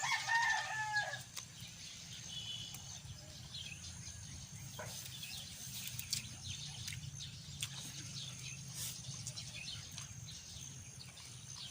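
A chicken calls once for about a second at the start. It is followed by a faint, even patter of light rain with scattered small ticks.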